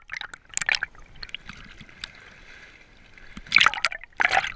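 Water sloshing and bubbling around a snorkeler's camera just below the surface, in irregular gurgling bursts, loudest near the end.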